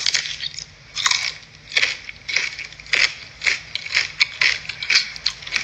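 A person biting into and chewing crisp food close to the microphone, loud crunches coming about every half second.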